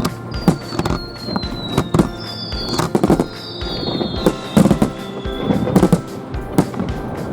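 Aerial fireworks going off in quick succession: a rapid run of sharp bangs, with several whistles sliding down in pitch as shells rise and burst.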